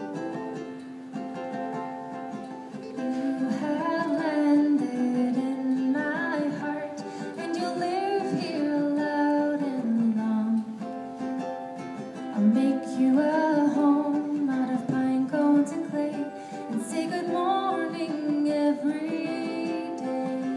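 A woman singing a song to her own ukulele accompaniment. The ukulele plays alone at first, and her voice comes in about three seconds in.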